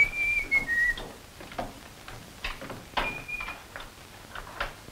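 A person whistling: a held high note that drops to a lower one, then a single short high note about three seconds later. Scattered knocks and footfalls come in between.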